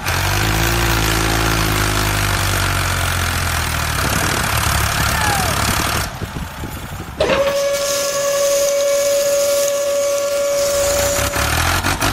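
Miniature tractor's engine running with a low rumble and hiss as it tows a loaded tipping trailer. About seven seconds in, a steady high-pitched motor whine starts as the tipper bed lifts to dump. The whine stops briefly near the end, then starts again.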